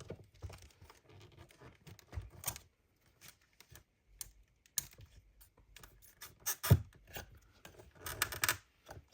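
Hard acrylic plastic clicking and scraping as an acrylic standee piece is worked and pushed into its slotted base, with a louder knock about two-thirds of the way through and a quick run of clicks near the end. The piece is a tight fit and goes in with some difficulty.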